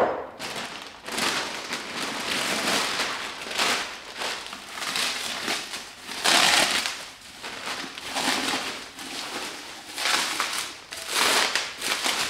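Plastic bubble wrap crinkling and rustling in repeated surges as it is pulled off a tall glass vase.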